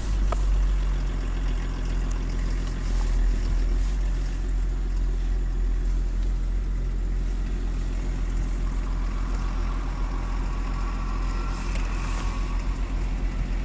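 BMW M51 2.5-litre straight-six turbo-diesel engine idling steadily just after being started.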